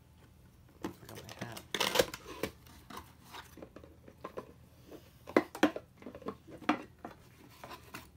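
Cardboard box being opened by hand: paperboard flaps pulled apart and folded back, with irregular scraping and rustling, loudest about two seconds in, and a few short sharp knocks and taps later as hands reach inside.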